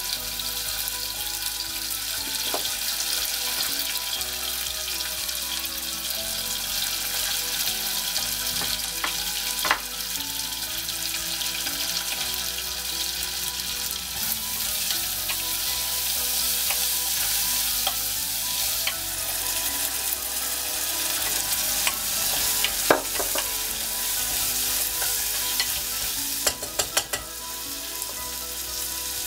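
Chicken, carrot and onion sizzling in hot oil in a nonstick pot, stirred with a wooden spoon. There is a steady frying hiss, with a few sharp clicks about ten seconds in, about 23 seconds in, and several near the end.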